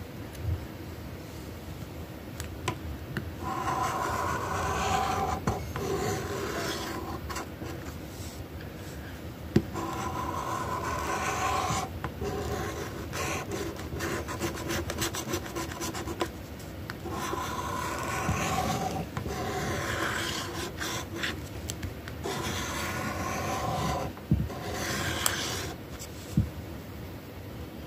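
Scratch-off lottery ticket being scraped, its silver coating rasping off in repeated bouts of strokes a few seconds long with short pauses between, plus a few sharp clicks.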